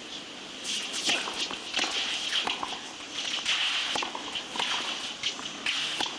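Tennis rally on a clay court: racket strikes on the ball and the players' shoes scuffing and sliding on the clay, as a run of irregular sharp clicks and scrapes starting about a second in.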